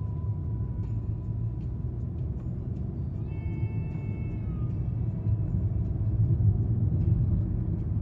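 Steady low road rumble inside a moving car's cabin. Faint thin high tones waver over it in the first half, with a brief cluster of several tones from about three to four and a half seconds in.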